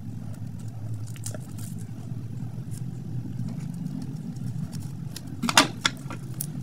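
Scissors snipping at a small plastic wrapper, with light clicks and crinkles as the plastic is worked. A louder crackle of plastic comes about five and a half seconds in as the wrapper is pulled open.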